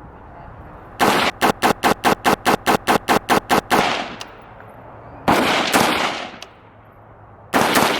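Firearm shots at a shooting range: a rapid string of about fifteen shots, about five a second, starting a second in, then two more shots a little past halfway and one near the end. Each shot trails off in echo.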